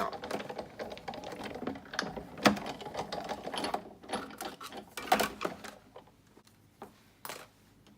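Sizzix Big Shot die-cutting machine being hand-cranked, its gears and rollers clattering as the plate sandwich passes through, for about the first four seconds. After that come a few separate clicks and taps.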